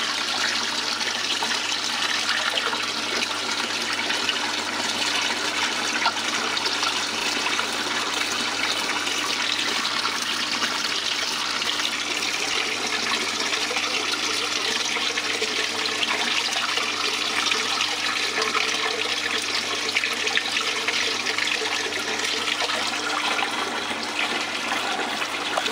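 Water running steadily in a thin sheet over a DIY miller table's flat deck and splashing at one side, with a low steady hum underneath.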